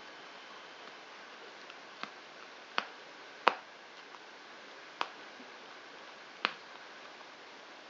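Five short, sharp clicks at uneven intervals over about four seconds, the third the loudest, from small hand-held tools picking masking off a freshly sprayed seat logo, against a faint steady hiss.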